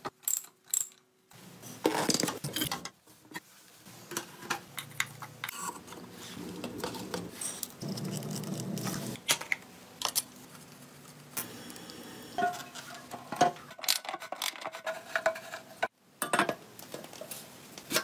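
Metal clinks, clicks and ratchet-like rattles of hand tools and motorcycle parts being fitted during reassembly, in many short separate knocks with a louder clatter about two seconds in and again near the end.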